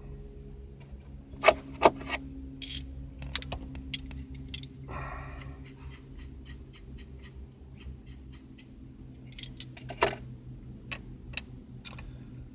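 Small metal bolts clinking and clattering as they are handled and picked through by hand, with sharp clicks in a few clusters, over a steady low hum.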